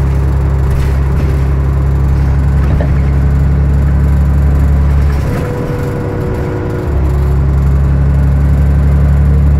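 Interior of a New Flyer D40i city bus under way: the Cummins ISL inline-six diesel runs with a loud, steady deep drone, mixed with road noise. A little past halfway the drone briefly drops away for about a second and a half, then comes back.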